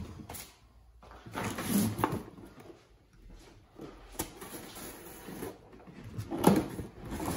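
Cardboard packaging being handled: a boxed brake rotor taken out of its shipping carton and its tape seal pulled off, with scraping and rustling and a sharp knock about six and a half seconds in.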